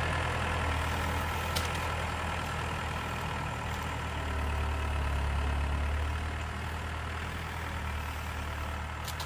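Skid-steer loader engine running steadily, a low hum that swells a little midway.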